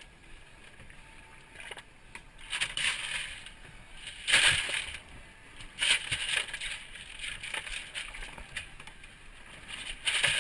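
Crushed ice crunching and shifting in a fish box as a mahi-mahi is dug out and moved about in it, in several short noisy bursts.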